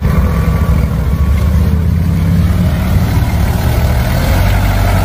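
Vehicle engine running steadily with a low hum, starting abruptly at full loudness.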